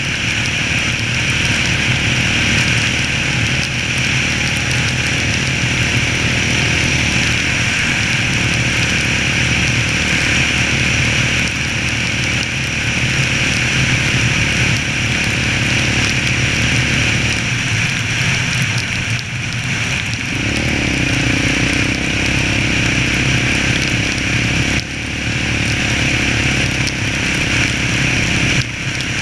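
Yamaha Raptor 700 quad's single-cylinder four-stroke engine running at a steady cruise, with wind and road noise over it. Its note drops off briefly about two-thirds of the way through, then picks up again.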